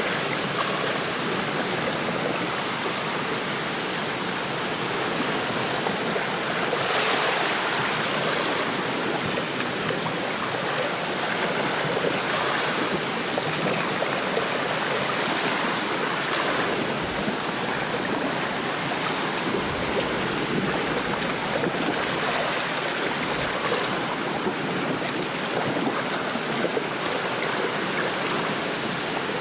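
Wind rushing through a lakeside reed bed with small waves lapping the shore after a storm: a steady hiss that swells with a gust about seven seconds in.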